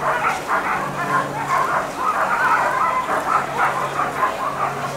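A harnessed sled dog team barking and yipping at the starting line, many dogs yelping over one another without a break. A steady low hum runs underneath.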